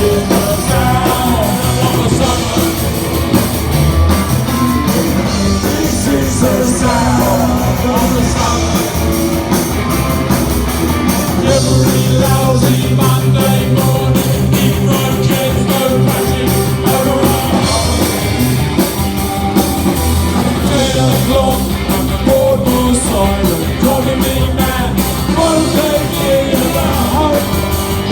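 Live punk rock band playing loudly, with drums keeping a steady driving beat under a sung lead vocal.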